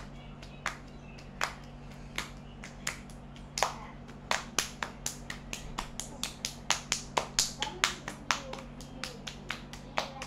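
Hands clapping in a two-person hand-clapping game, own claps alternating with palm slaps against the partner's hands. Sharp, single slaps about one every 0.7 s at first, then quickening from about four seconds in to some four or five a second.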